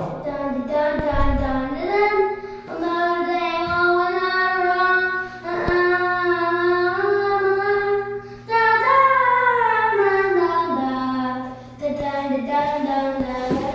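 A child singing unaccompanied in long, held, gliding notes, over a steady low hum.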